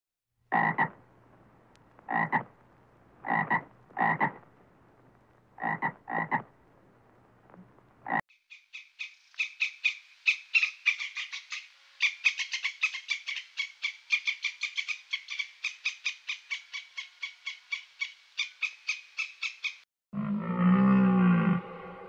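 A frog croaking about seven times, the short croaks coming in uneven pairs. Then a long run of rapid, high-pitched chattering clicks, about five or six a second, like a red squirrel's chatter. About two seconds before the end, a deep moaning call as of a red deer begins.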